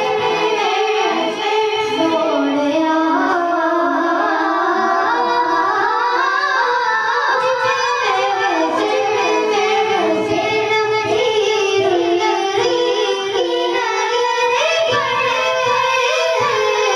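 Boys singing a devotional naat into microphones, a sustained melodic vocal line.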